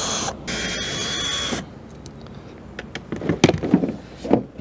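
Cordless drill-driver running, backing out the screws that hold down the plastic shroud of a rooftop RV heat pump: steady whirring that breaks off briefly and then stops about a second and a half in. Later come a few knocks and clatters as the plastic shroud is handled and lifted off.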